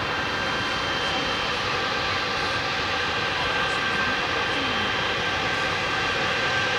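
Boeing 777-300ER's GE90-115B turbofan engines running at low taxiing power as the airliner rolls slowly on the ground: a steady rush of jet noise with a thin high whine held on one pitch, growing slightly louder near the end.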